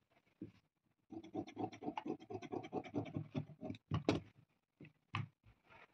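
Large tailor's shears snipping through fabric backed with fusing paper, a fast, even run of short cuts lasting about three seconds. Then a few separate sharp clicks.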